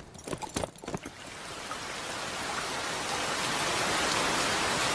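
Rain setting in: a few scattered taps in the first second, then a steady rain hiss that swells and grows heavier over the next few seconds before holding level.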